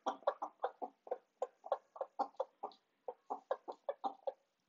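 Chickens clucking in a fast run of short clucks, about five a second, with a brief pause about three seconds in: excited clucking while eating a favourite treat.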